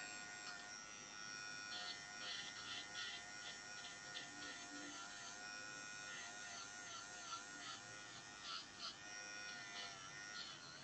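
Electric nail drill (e-file) running at low speed with its bit worked flat around the nail's cuticle contour: a faint, steady whine that dips slightly in pitch now and then as the bit meets the nail.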